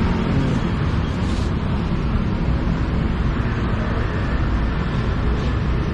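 Steady rumble of road traffic passing close by, a continuous low hum with no single vehicle standing out.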